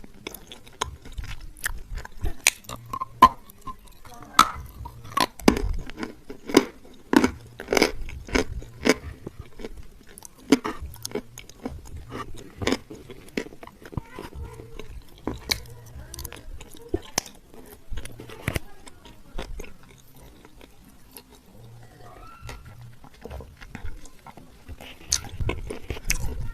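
Close-up crunching and chewing of hard, dry edible clay: irregular crisp bites and chews, thickest in the first half, then sparser, with a few loud crunches again near the end.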